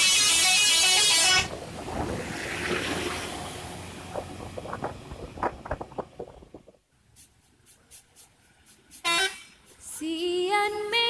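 Bus telolet horn sounding in loud multi-tone blasts: one lasting about a second and a half at the start, a short one about nine seconds in, then a run of stepped notes near the end. In between is quieter traffic noise with scattered clicks.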